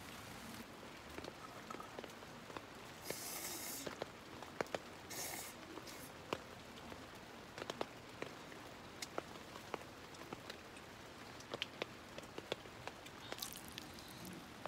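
Light rain: scattered drops tapping irregularly over a faint steady hiss, with two brief louder rustling hisses about three and five seconds in.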